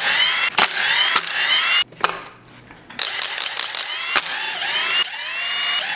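Cordless drill-driver running in several bursts as it backs out valve cover bolts on an LS V8. Each burst has a rising motor whine, with a pause of about a second around two seconds in.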